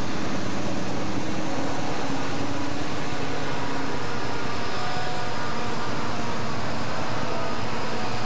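A string of diesel-electric locomotives, a Santa Fe unit leading and Southern Pacific units behind, passing at close range with their engines running in a steady loud drone.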